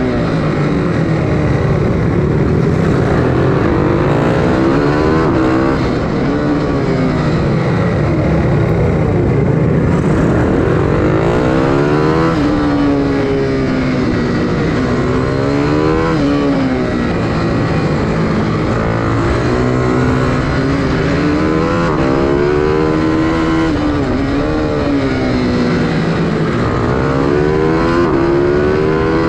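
Bucci BR12 GP minibike's engine heard onboard under race throttle, its pitch repeatedly rising as it accelerates and falling again every few seconds as it shifts and brakes for corners.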